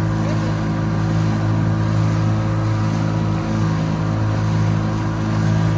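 Motorboat engine running steadily at speed, with an even hum and the rush of water and wind beneath it.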